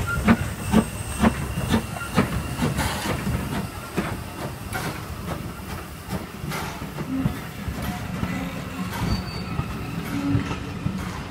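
Hunslet Austerity 0-6-0 saddle-tank steam locomotive pulling away, its exhaust chuffing about twice a second. After a few seconds its carriages roll past with a steady rumble and scattered clicks over the rail joints.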